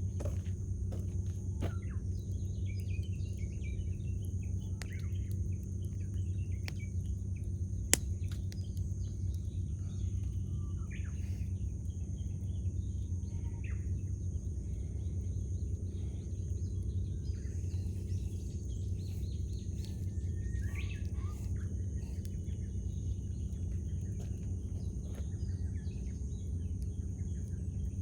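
Wood campfire crackling with scattered small pops and one sharp pop about 8 seconds in, over a steady low rumble. Wild birds chirp and call on and off throughout.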